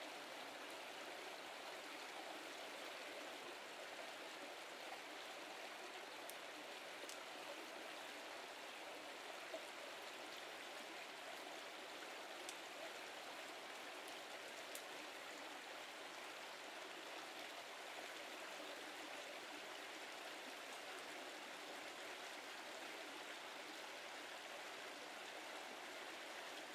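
Brook water running steadily, an even rushing hiss, with a few faint clicks between about six and fifteen seconds in.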